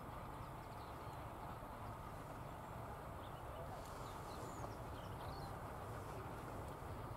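Distant diesel locomotive running as it approaches, heard as a low steady rumble under an even noise haze, with a few brief bird chirps about halfway through.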